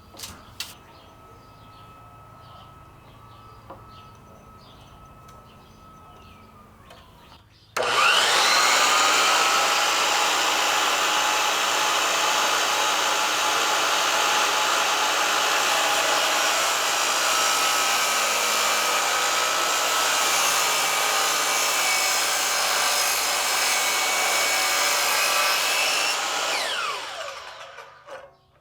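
An electric power tool's motor switches on about eight seconds in and runs steadily at one speed for close to twenty seconds, then is switched off and winds down with a falling pitch.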